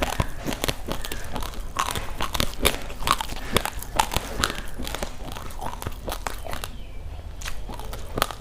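Raw, uncooked rice grains crunched and chewed close to the microphone: a rapid, irregular series of sharp cracks that thins out briefly about seven seconds in.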